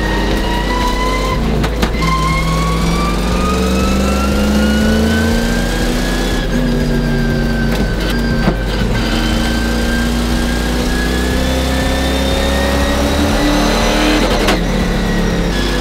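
Stock car's V8 engine running hard at speed, heard from inside the cockpit. Its pitch drops about two seconds in, then climbs slowly as the car accelerates around the oval.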